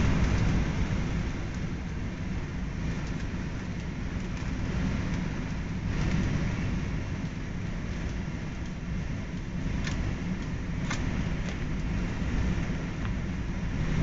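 A brush scrubbing inside a PVC condensate drain trap: a steady rough rubbing over a low rumble, with two sharp clicks about ten and eleven seconds in.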